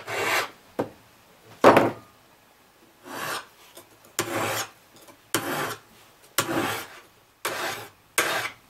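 A hand flat file rasping across the steel cutting blade of a pole pruner in about eight strokes, roughly one a second and closer together near the end. The dull blade is being sharpened along its original bevel.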